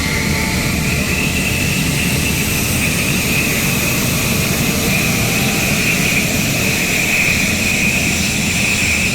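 Fighter jet engine running with a steady high whine over a low rumble; the whine rises slightly after about a second and sinks again near the end.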